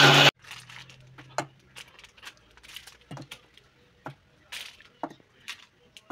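Electric mixer grinder running on roasted peanuts, cutting off suddenly just after the start; a faint hum lingers for about a second and a half. Then a scatter of light clicks and taps from the steel jar and plastic lid being handled as pieces of jaggery go in.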